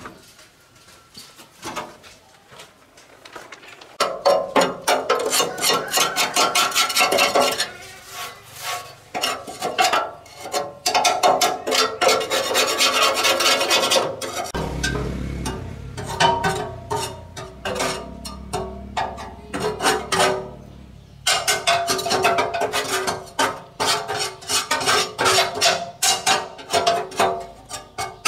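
Rapid hand scraping or filing strokes, in long dense runs with short pauses. A low hum comes in suddenly about halfway through and runs under the strokes.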